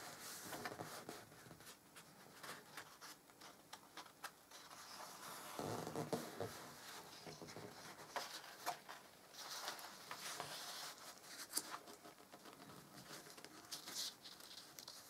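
Paper rustling and brushing as the stiff pages of a photo album are turned and handled, with a fuller rustle of a page turning about six seconds in and scattered small taps and scrapes of hands on paper.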